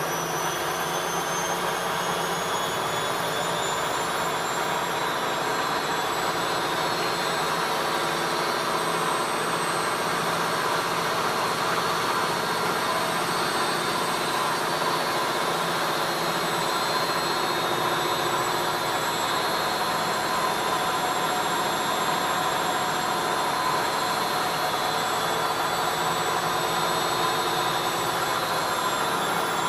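ELIN A 100 E washing machine spinning: a steady whir of motor and drum with a high whine that rises in pitch over the first eight seconds or so, then holds steady.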